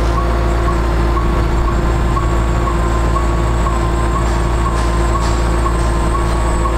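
A bucket truck's Caterpillar C7 diesel engine running steadily to drive the hydraulics, with a steady hydraulic whine, while the front outrigger is lowered. A warning beeper sounds about twice a second, a single high tone repeating evenly as the outrigger moves.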